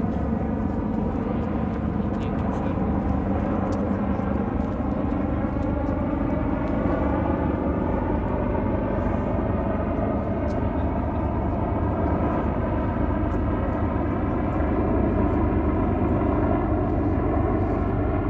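Medevac helicopter approaching in flight: a steady, loud rotor and turbine drone whose pitch drifts slowly as it comes in, growing a little louder near the end.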